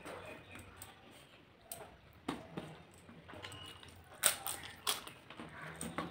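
Close-up eating sounds: a fried papad being bitten and chewed, with a few sharp crunches, the loudest about four seconds in, between softer wet chewing.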